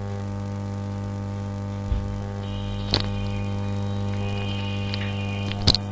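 Steady electrical mains hum, with a low thump about two seconds in and two sharp clicks, about three seconds in and near the end.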